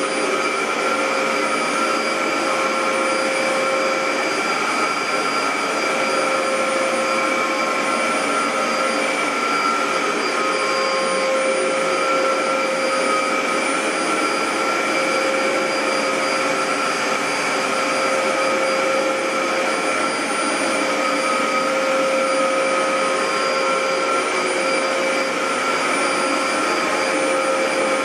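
Dyson DC07 bagless upright vacuum cleaner running steadily: an even rush of air with a constant whine from the motor.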